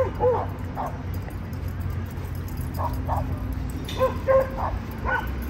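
A dog barking in short, sharp yips in small bunches: a few right at the start, two around three seconds in, and a quicker cluster between four and five seconds in. A steady low city traffic rumble runs underneath.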